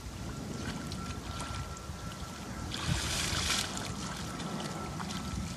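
Water sloshing and splashing as someone wades barefoot through shallow muddy water, with a louder splash about three seconds in.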